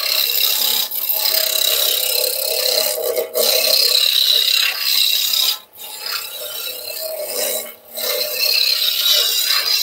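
Spindle roughing gouge cutting a spinning wooden blank on a lathe: a steady hiss of shavings being peeled off as the square stock is roughed down to a round cylinder. The sound drops out briefly three times, at about three, six and eight seconds in, as the tool comes off the wood.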